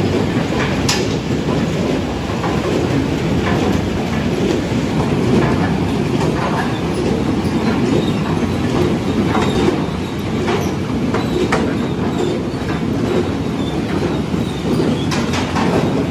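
Potato sorting line running: the grader and its conveyor belts rattle steadily, with scattered sharp knocks of potatoes tumbling along the belts and dropping into crates.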